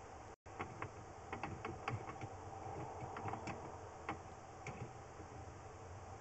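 Irregular light clicks and taps over a steady low hum, with a brief cut-out of all sound about half a second in.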